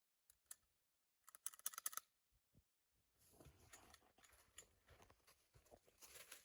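Faint clicking and rattling of plastic parts being handled, likely the casing and innards of a shot-up Xbox 360 being picked through. A quick run of clicks comes about a second and a half in, and a soft crackling rustle starts about three seconds in.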